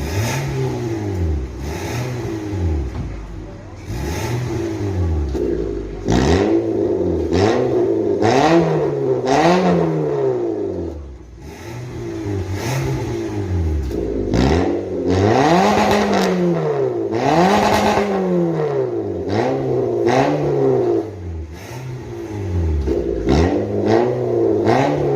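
Toyota Yaris TRD Sportivo engine revved in repeated throttle blips through an aftermarket valvetronic exhaust, the pitch rising and falling about every second or two, loud with sharp crackling pops.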